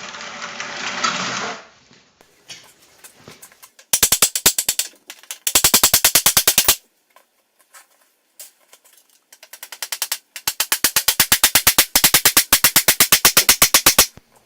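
Rapid, evenly spaced mechanical clicking, about a dozen clicks a second, in loud bursts: two short ones about four and six seconds in, and a longer one near the end. It opens with a short hiss.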